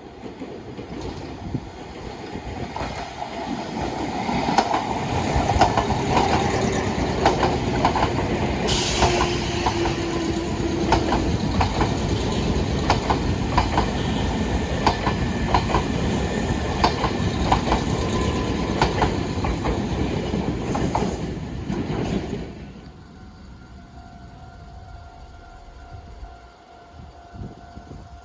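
Electric train passing close by, its wheels clacking in a steady rhythm over rail joints with a faint falling motor whine. The noise builds over the first few seconds and drops away sharply about 22 seconds in as the train clears.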